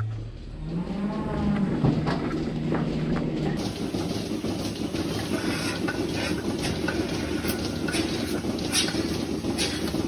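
Milking parlour machinery running. A steady low hum for the first few seconds, then a denser even machine noise with scattered short clicks and hisses from the milking units and teat-dip spraying.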